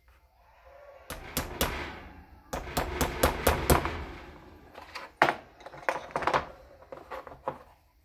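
Sharp taps and knocks of a small brass hammer driving a brass screwdriver to chisel the old rubber insulator out of a Yamaha GT80 carburetor. The taps start about a second in, come thickest in the middle and again toward the end.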